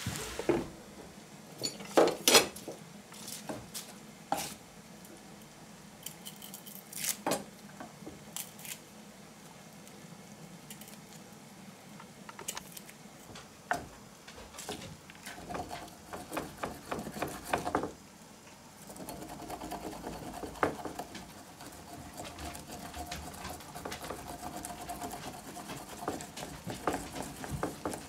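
Pots and metal kitchen utensils clinking and knocking, with a few sharp clanks about two seconds in the loudest, a run of quicker taps later, and a faint steady hum in the second half.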